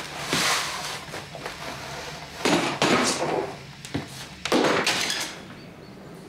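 Sounds of a struggle in a small room: a few knocks and thuds with scuffling, in short bursts over the first five seconds, then quieter.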